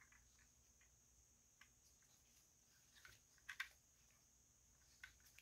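Faint handling sounds of a Studio Series 86 Ratchet plastic toy figure in ambulance vehicle mode being turned over in gloved hands: scattered soft plastic clicks and taps, the loudest pair about three and a half seconds in, over a faint steady hiss.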